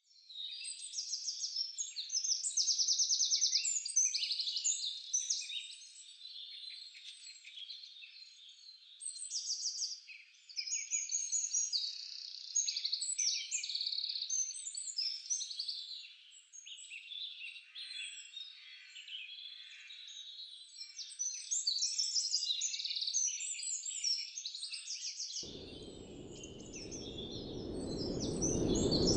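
Several birds singing at once, a dense chorus of overlapping chirps and trills. About 25 seconds in, a low rushing noise comes in and grows louder beneath the song.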